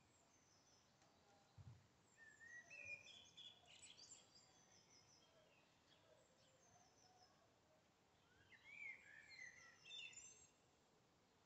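Faint songbird song: a run of quick chirps and trills about two to five seconds in, and another phrase about nine to ten seconds in, over a quiet steady hiss.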